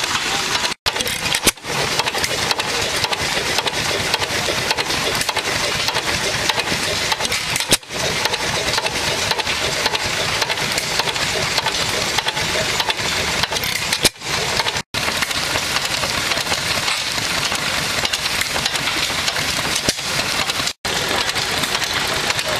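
Antique single-cylinder stationary gas engine running steadily, its flywheels and crank turning as it drives a small belt-driven thresher.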